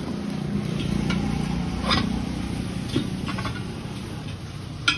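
A vehicle engine running nearby: a low rumble that swells at the start and fades over the next few seconds, with a few sharp metallic clicks.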